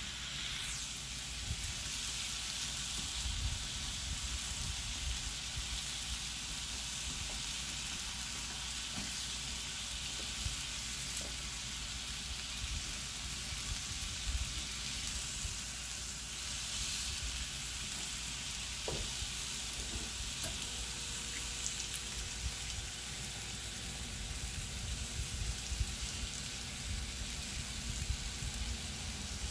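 Chicken breasts sizzling steadily in a hot cast-iron grill pan, searing to get grill marks, with a few faint clicks.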